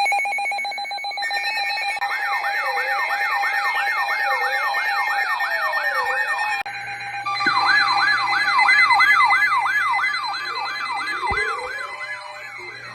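Electronic siren-like alert tones layered together: a steady high tone under a fast, repeating rising-and-falling wail of about two to three sweeps a second. The wail breaks off for a moment just over six seconds in, then starts again.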